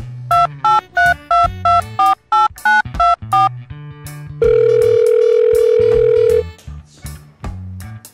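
Telephone keypad touch-tones dialing about ten digits in quick succession, then one long steady beep of about two seconds, over background music with a bass line.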